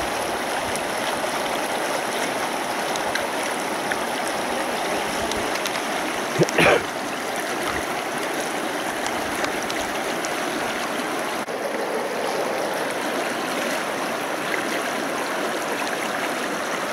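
Taiga river rushing over stones in a steady wash. About six and a half seconds in there is a brief, louder knock.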